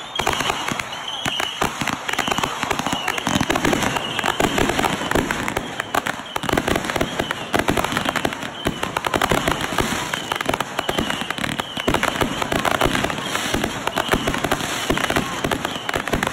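Backyard consumer aerial fireworks firing a rapid, unbroken barrage of bangs and crackling bursts.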